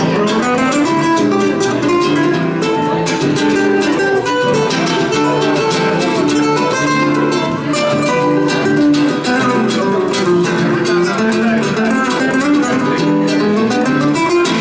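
Two nylon-string classical guitars playing together, an instrumental passage of quick plucked notes over a lower accompaniment.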